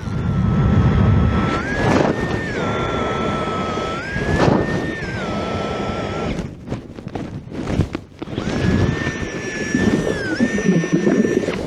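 Strong blizzard wind buffeting the microphone, with a thin high whistle that steps up and down between two pitches.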